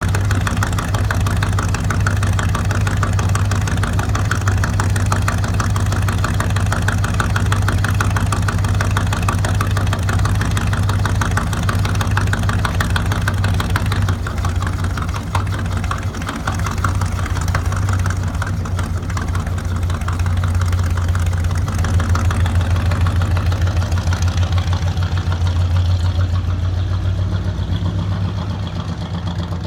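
Chevy G20 van's engine idling through an open exhaust: a loud, steady run with a rapid even pulse.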